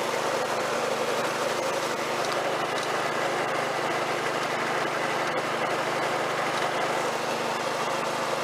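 Snapper rear-engine riding mower's small engine running steadily, at an even pitch with no changes in speed.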